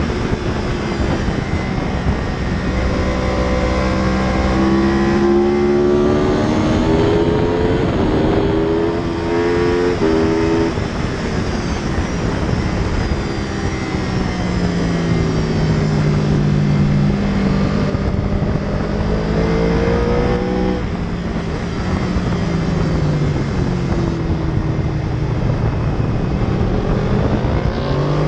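2014 Yamaha YZF R1's crossplane inline-four engine at speed, with wind noise on the microphone. Its pitch climbs in steps through several upshifts in the first ten seconds or so, falls away as the bike slows, then rises and falls twice more.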